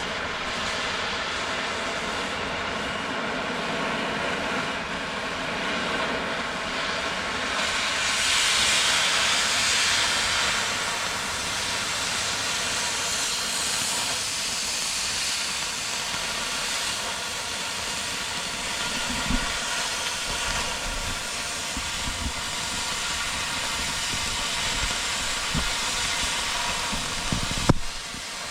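Farm machine engine running steadily under a loud hiss of air and fan noise, the hiss swelling for a couple of seconds about eight seconds in. A few short knocks come in the second half, the sharpest just before the end.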